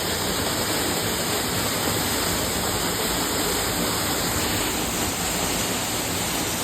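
Hedge Creek Falls waterfall: a steady rush of falling water.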